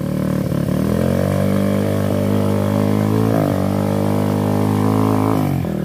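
Enduro dirt bike engine running steadily on the throttle, its pitch dipping briefly about halfway through and dropping off just before the end.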